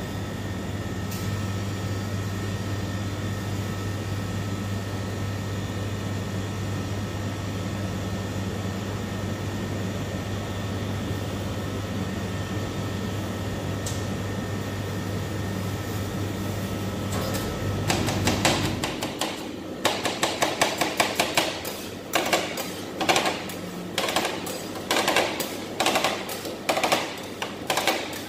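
A steady hum, then, about two-thirds of the way in, two steel spatulas start chopping cookies into a cream base on a stainless-steel rolled-ice-cream cold plate: rapid metal-on-metal strikes coming in bursts.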